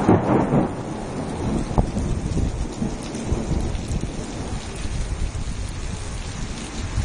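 Thunder rumbling, loudest in the first second and then dying away, over steady rain.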